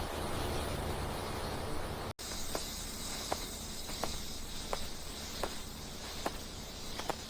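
A rumbling noise that cuts off abruptly about two seconds in, then a steady high insect chirring with short soft clicks about every 0.7 seconds.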